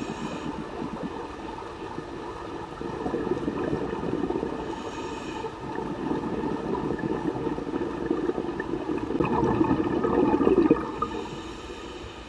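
Muffled underwater rushing and bubbling, typical of a scuba diver's exhaled bubbles. It swells over several seconds and falls away abruptly near the end.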